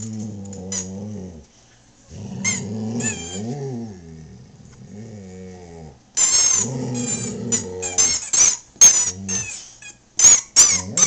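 A boxer dog grumbles and growls in long, wavering bouts, his 'talking', while chewing a plush squeaky popcorn-box toy. The toy squeaks now and then at first, then in loud quick runs from about six seconds in and again near the end.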